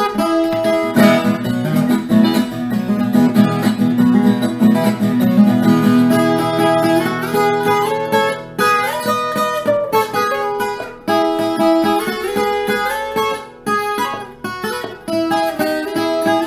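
Background music: plucked acoustic guitar playing an instrumental tune, with quick runs of notes.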